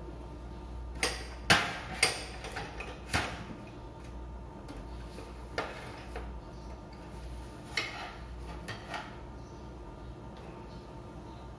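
Kitchenware being handled: a run of irregular clinks and knocks, loudest about one and a half to two seconds in and thinning out after about three seconds, over a steady low hum.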